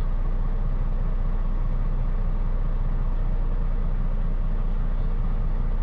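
Semi-truck's diesel engine idling steadily, heard from inside the cab as a constant low drone.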